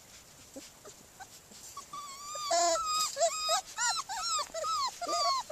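Young border collie puppy whimpering: a run of short, high, whiny cries that bend in pitch, two or three a second, starting about two seconds in and growing louder.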